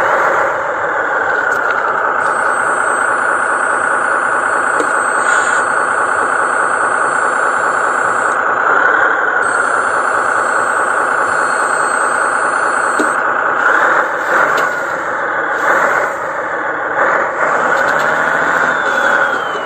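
Radio-controlled model truck running, its motor and gearbox giving a steady, high whine whose pitch dips and glides as its speed changes, with a few clicks near the end.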